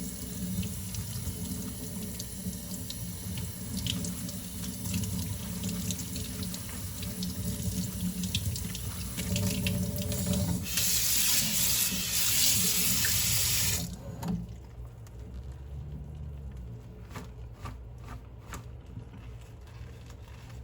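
Kitchen tap running into a sink while dishes are washed, with light clicks and clinks. About 11 s in the water runs louder for a few seconds, then is turned off suddenly, leaving a few light clicks.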